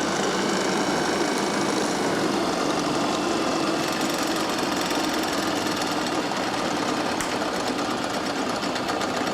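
Generator test bench running steadily, its drive motor spinning a generator under test for a charging-output check.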